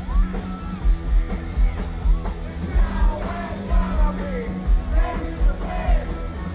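Live punk rock band playing loudly, with a steady droning bass, a regular heavy kick drum and distorted guitar. A male singer sings and yells over the band, heard from within the crowd.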